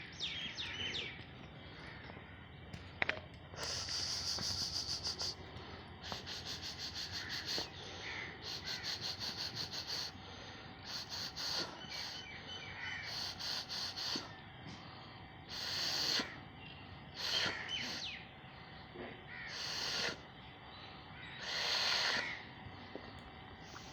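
Hungry dog eating in repeated bursts of rapid chewing and smacking, about ten strokes a second, with birds chirping in the background.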